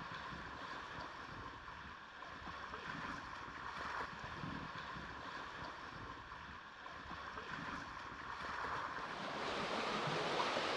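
Sea water washing and sloshing along a sailing catamaran's hull as it moves through the waves, a steady wash that grows a little louder near the end.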